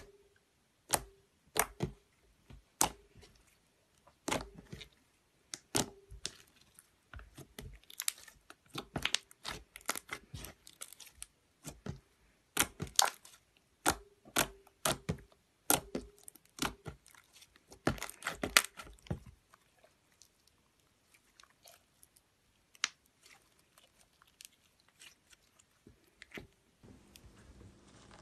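Glossy slime being squeezed and poked by fingers, giving off irregular sharp wet clicks and pops, dense and loud for most of the time, then sparser and fainter. About a second before the end a steady soft crackle starts as a hand presses clear slime into crunchy sprinkles.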